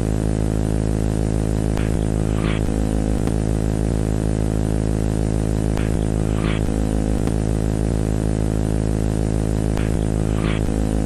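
Loud, steady electronic buzzing drone with many harmonics and no change in pitch, with faint paired crackles about every four seconds; it cuts off suddenly at the end.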